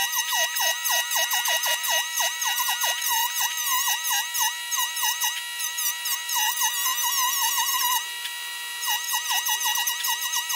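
Handheld rotary tool running with a high whine while its bit grinds a small wooden pendant. The pitch dips and recovers several times a second as the bit is pressed into the wood and eased off. About eight seconds in, it runs steadily for a moment with the bit off the wood, then the dipping resumes.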